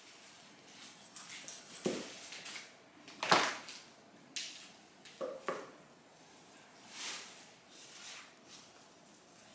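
A few scattered knocks and rustles, the loudest about three seconds in.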